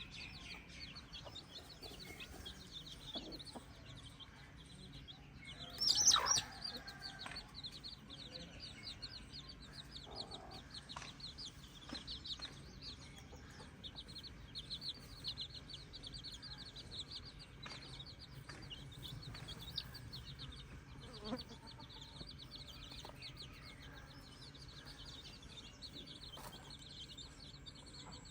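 Free-range chicken flock: a dense chorus of short, high peeping chirps, with one louder, sharper call about six seconds in and a few fainter clucks.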